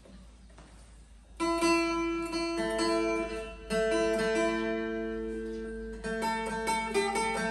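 Electric-acoustic phin (Thai-Lao lute) played in a melodic phrase of plucked notes, several left ringing. It comes in about a second and a half in, after a moment of low hum, and starts a new phrase about six seconds in.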